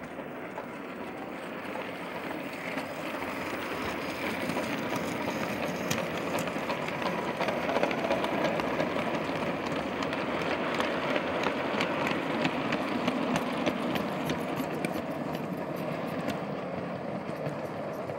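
O gauge model goods train rolling past on outdoor garden-railway track, its wagon wheels clicking over the rail joints. The rumble grows louder as the train comes by and eases off near the end as it runs away.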